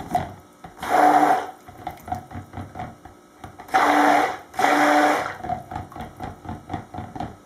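Stick blender pulsed three times in a plastic jug of soap batter, a short motor whine each time, with soft knocks and stirring against the jug between the pulses. It is blending titanium dioxide into the batter.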